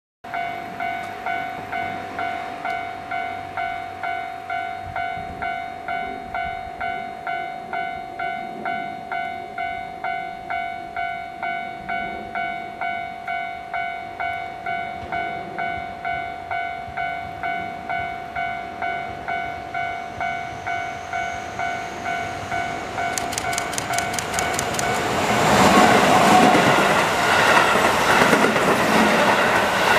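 Japanese level-crossing warning bell dinging steadily, about four rings every three seconds. Near the end a Keihan 3000-series electric train passes the crossing at speed without stopping: a rising whine and a quick run of clicks as it arrives, then a loud rush of wheel and rail noise that drowns the bell.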